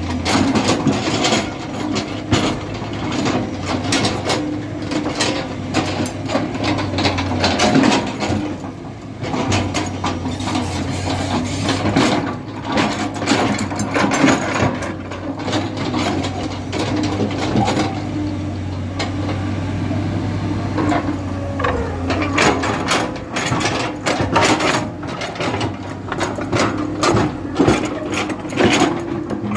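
Backhoe loader's diesel engine running steadily under load, with repeated irregular clanks, knocks and scraping as the bucket digs and moves material.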